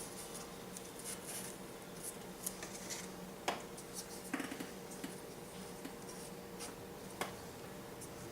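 Light clicks and taps of small balsa-wood model bridge parts being handled and fitted into place, with a few sharper clicks, over a faint steady hum.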